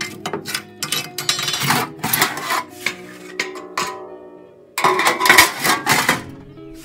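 Metal ash scoop and poker clattering and scraping on a wood stove's grate and a galvanized metal bucket as ashes are cleared out. A louder burst of scraping comes about five seconds in as the scoop works over the bucket. Background music plays underneath.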